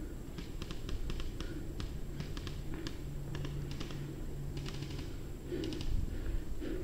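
Airsoft guns firing in short bursts of rapid clicking shots, about seven bursts in a row, with a low steady hum underneath.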